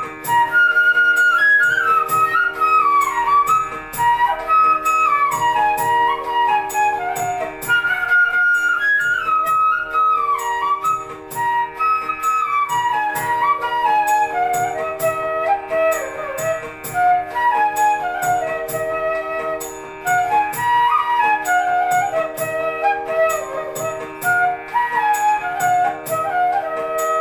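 Bansuri (bamboo transverse flute) playing a melody in mostly falling phrases, over a steady drone and a light, even percussion beat.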